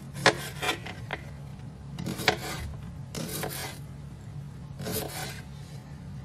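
Kitchen knife slicing cucumber on a plastic cutting board: a series of short crisp cuts and rasping strokes at irregular intervals, over a steady low hum.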